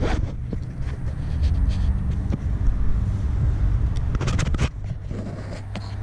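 Handling noise from a camera being moved and set in place: a knock at the start and a short cluster of knocks and scrapes about four seconds in, over a steady low rumble.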